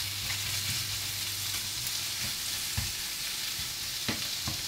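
Seasoned chicken pieces sizzling steadily in a hot oil-sprayed non-stick frying pan, with a few light knocks against the pan.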